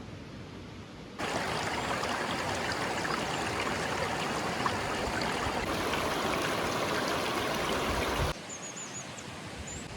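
Steady rushing of river water, fainter at first, much louder from about a second in, then dropping off abruptly near the end. A few short high bird chirps follow the drop.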